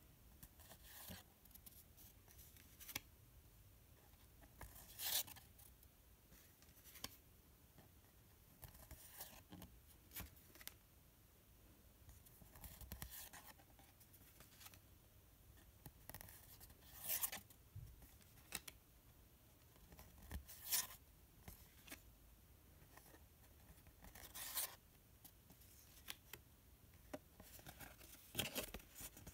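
Paper postcards sliding against one another as they are leafed off a stack one at a time: a faint, short swish of card on card every few seconds.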